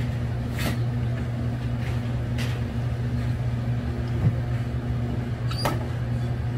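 Steady low electrical hum of shop machinery, with a few brief clicks as metal is handled.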